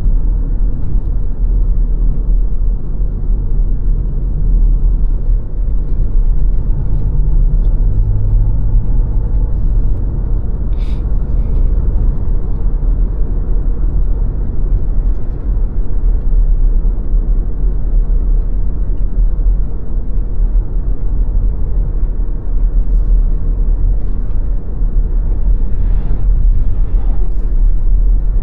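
A car driving steadily along a road: a constant low rumble of road and engine noise, with a few faint ticks.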